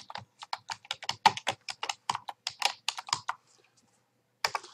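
Typing on a computer keyboard: a quick run of keystrokes lasting about three seconds, then a short pause and a couple more keystrokes near the end.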